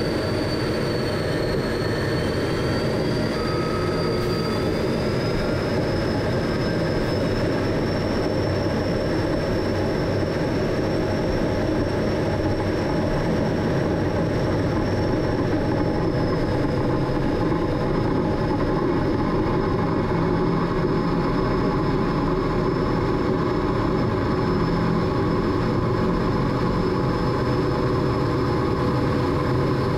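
MiG-17 jet engine running steadily at high power in flight, a constant rush with a high whine that rises over the first few seconds and then holds.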